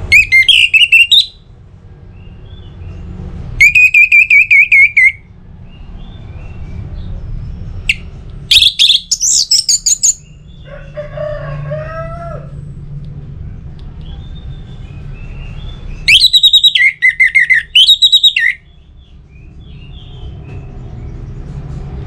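Orange-headed thrush singing: four loud phrases of fast, warbled trills, each one to two seconds long, separated by pauses, with a softer, lower chattering sound after the third phrase. A steady low rumble runs underneath.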